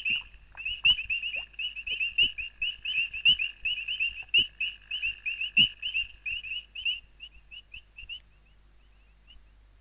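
Male painted reed frogs calling: rapid, short, high-pitched chirps, several a second, thinning out after about seven seconds and fading away near the end.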